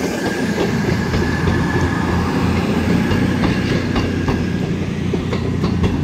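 Class 221 Super Voyager diesel multiple unit running past: a steady low rumble, with its wheels clicking over rail joints.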